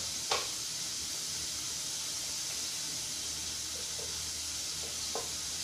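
Roux of flour and oil cooking slowly in a stainless steel pot, a steady hiss, while a wooden spatula stirs it, with one short knock against the pot just after the start and a few faint taps later.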